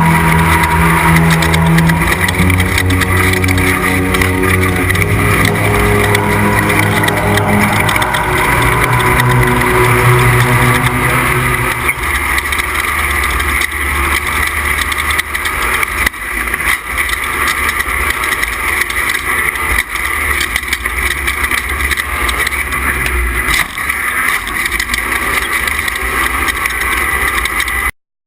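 Off-road race truck engine heard from onboard, rising and falling in stepped jumps of pitch for the first dozen seconds, then settling to a low rumble with road noise and scattered knocks. The sound cuts off abruptly near the end.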